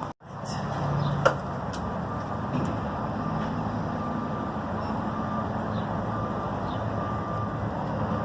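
Steady low mechanical rumble with a hum, and one sharp click a little over a second in.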